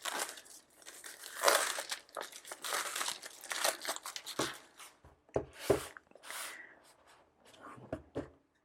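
Plastic shrink wrap being torn and peeled off a cardboard product box, crinkling in irregular bursts.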